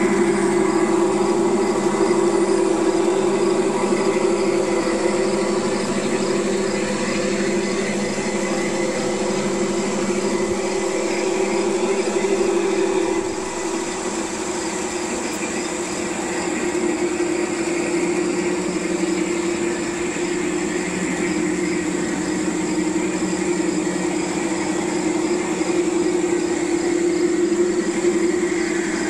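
G-scale model SD-45 diesel locomotives running a train around the garden track: a steady mechanical drone with a constant hum. It dips in loudness about halfway through and grows again near the end.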